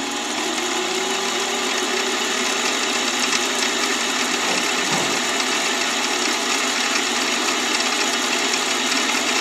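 Mini-lathe running, its motor whine rising in pitch over the first couple of seconds as the spindle comes up to speed, then holding steady while a small center drill cuts a center hole into the head of a brass screw.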